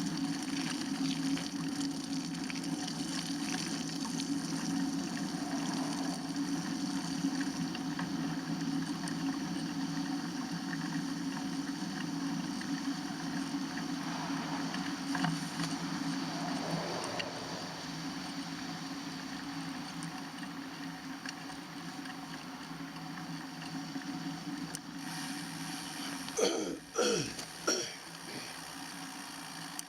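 Steady noise of a bicycle ride on wet, slushy roads after snow: tyres hissing through water, mixed with wind. About 26 seconds in, a couple of short sounds sweep quickly down in pitch.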